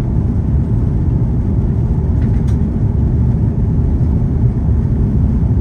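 Cabin noise inside an Airbus A330-300 in flight on descent: a steady, loud low rumble of airflow and engines, with a faint click about two and a half seconds in.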